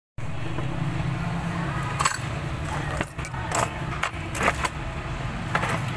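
Light metallic clicks and clinks of a metal watch band, its clasp and small repair tools being handled on a workbench, a handful of separate taps over a steady low hum.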